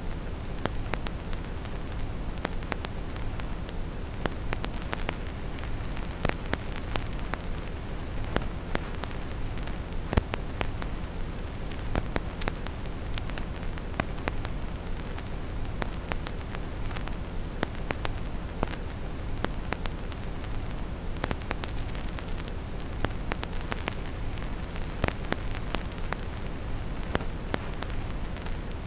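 Vinyl record crackle with no music: irregular small clicks and pops from the needle on the disc. Under it runs a steady, deep brown-noise hiss.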